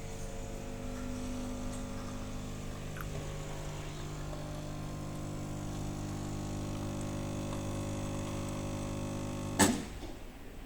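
SKT Stone espresso machine's pump humming steadily while it brews a double shot, cutting off with a sudden short burst of sound about nine and a half seconds in.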